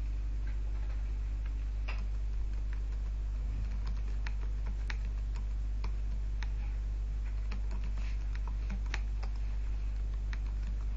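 Irregular keystrokes of typing on a computer keyboard, a few clicks a second with pauses between, over a steady low electrical hum.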